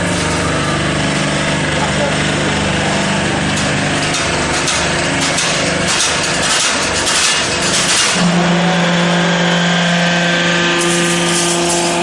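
Hydraulic power unit of a semi-automatic crimped wire mesh machine running with a steady hum; the hum breaks up around the middle and comes back strongly about eight seconds in. Bursts of metallic rattling from the wire and crimping mechanism come and go over it.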